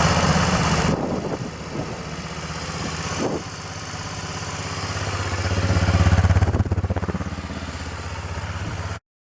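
1994 BMW F650 Funduro's single-cylinder engine running, dropping back to idle about a second in, then rising in revs around six seconds in and settling again. The sound cuts off abruptly near the end.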